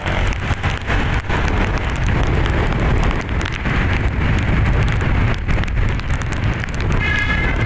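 Tour bus going by, its engine a low rumble under steady rushing noise. Near the end its multi-tone 'telolet basuri' musical air horn starts to play.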